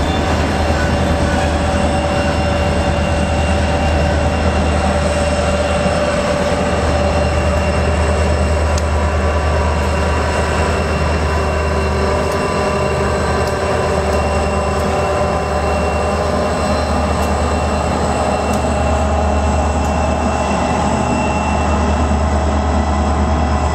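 Two Norfolk Southern diesel helper locomotives pushing at the rear of a freight train, their engines running with a steady deep drone, with several steady whining tones above it.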